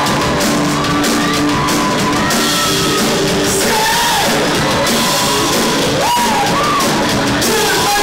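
Loud live rock band playing: a drum kit hit hard, with cymbals washing over it, under a sung melody line that glides up and down.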